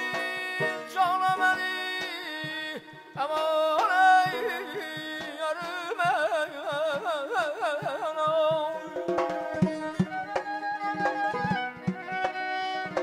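Azerbaijani mugham ensemble playing: a male singer's voice wavers in fast, wide trills around the middle, over a plucked tar, with a naghara drum tapping strokes that grow denser near the end.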